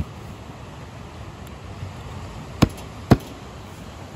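Two sharp cracks about half a second apart, a little past halfway, as a knife is forced into a cooked lobster's hard shell to break it open.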